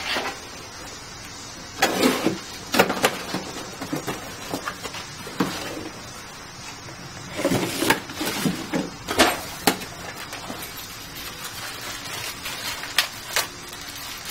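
Cardboard box and bagged kit parts being handled on a workbench: rustling and scraping with several sharp knocks and clatters, loudest around two to three seconds in and again around eight to ten seconds in.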